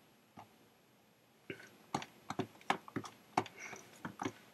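Computer keys being pressed, an irregular run of about a dozen quick clicks that starts about a second and a half in.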